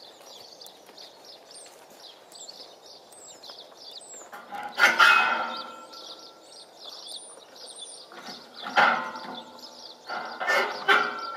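Small birds chirping, with a few loud, short animal calls about five seconds in, about nine seconds in and near the end.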